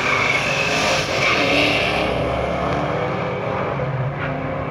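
Two street cars launching side by side in a drag race and accelerating hard down the strip. The loud engine and tire noise thins and fades from about halfway through as they pull away.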